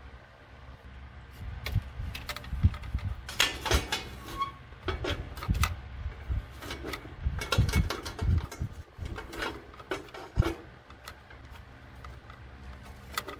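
Irregular knocks, clicks and scrapes as a replacement attic exhaust fan motor is handled and worked into the sheet-metal fan's hub and housing, with a low steady hum underneath.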